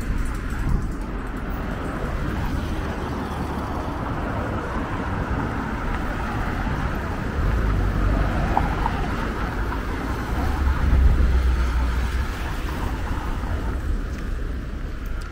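Road traffic passing steadily, with a louder low rumble swelling from about seven to twelve seconds in.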